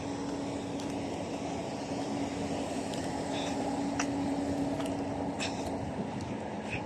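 Steady outdoor street background noise: a low rumble with a constant hum running through it and a few faint clicks.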